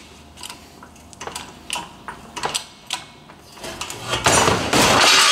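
Hydraulic shop press forcing a spacer onto a Jeep Wrangler TJ axle shaft: a string of light metallic clicks and knocks, then about four seconds in a loud, sustained metallic noise with ringing tones as the part is pushed down the shaft.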